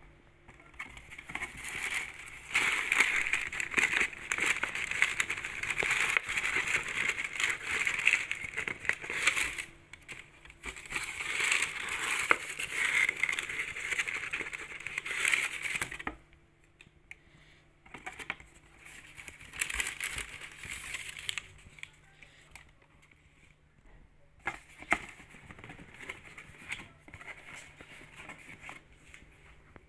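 Shoebox packaging handled: paper and cardboard crinkling and rustling densely for about the first sixteen seconds, then quieter handling with a few scattered clicks and knocks.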